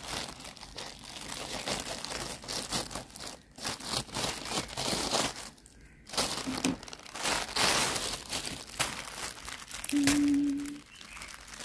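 Plastic courier mailer bag crinkling and rustling as it is handled and cut open with scissors, with short snips and tearing, pausing briefly twice.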